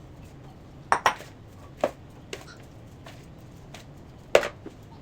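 Kitchen utensils and dishes clinking and knocking: about six separate sharp clinks, the loudest near the end.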